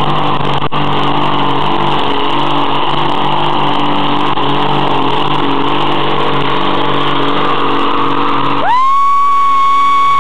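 Dodge Ram pickup's engine running hard under load as it drags a weight sled, a loud, steady drone. Near the end, a loud, steady high-pitched tone cuts in and drowns out the engine.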